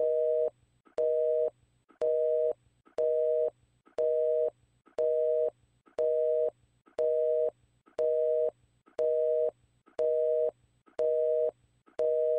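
Telephone busy signal after the call has been hung up: a steady two-note tone beeping on and off evenly about once a second.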